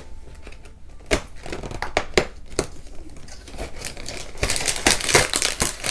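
Cardboard advent calendar door being pried and torn open with a few sharp snaps, then a small popcorn packet crinkling as it is pulled out. The crinkling comes near the end and is the loudest part.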